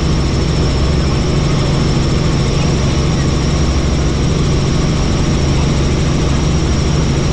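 Helicopter in flight: a loud, unbroken drone of rotor and engine, with a thin steady high whine over it.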